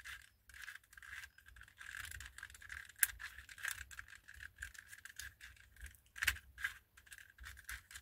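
Plastic pieces of a 2x2-based twisty-puzzle chess queen being fitted and turned by hand: scattered light clicks and rattles, with a couple of sharper clicks about 3 s and 6 s in.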